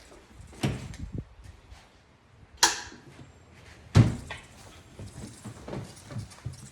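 Handling noises from working on a golf cart's wiring and dash: a small knock, a sharp click about two and a half seconds in, and a heavier thunk about four seconds in, then light clicks and rustling.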